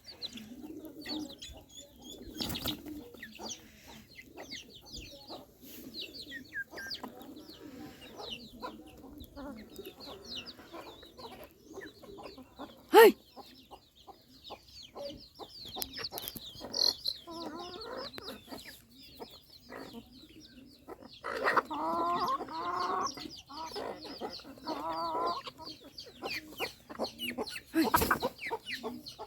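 Chickens feeding: a steady scatter of high chick peeps over lower clucking, with a sharp knock about 13 seconds in and a louder run of pitched clucking calls about 21 to 25 seconds in.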